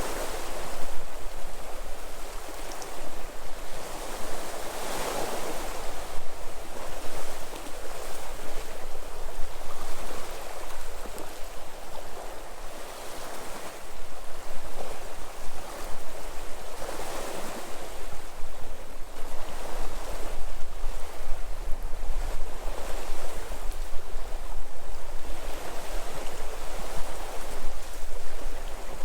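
Sea waves washing onto the shore, the surf swelling and falling back every few seconds, with a low wind rumble on the microphone.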